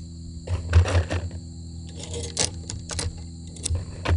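Metallic clicks and rattles of .38 Special wadcutter cartridges being pressed one at a time into the magazine of a Smith & Wesson Model 52-2 pistol. A cluster of clicks comes about a second in, followed by several single clicks.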